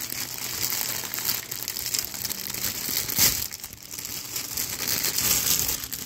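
Crinkly packaging rustling and crumpling as a stuffed toy is handled, with a louder crackle about three seconds in.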